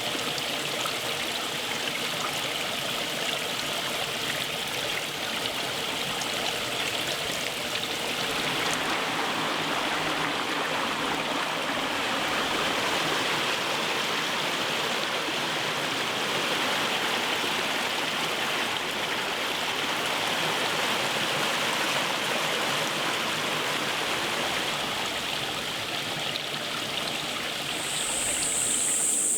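Flowing water rushing steadily, growing fuller about eight seconds in.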